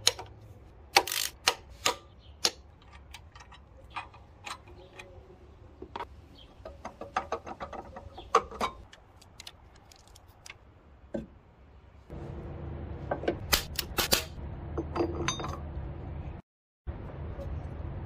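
Metal tools clinking and clicking against the engine mount's bolts and bracket: a run of sharp, separate clicks, quicker for a moment in the middle. About two-thirds of the way in, a steady low hum starts under the clicks, and the sound cuts out briefly near the end.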